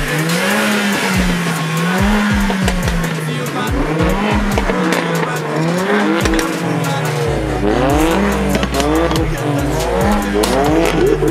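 Car engine revving with tyre squeal, mixed with a music beat. A deep bass comes in about seven seconds in, along with quick rising and falling pitch sweeps.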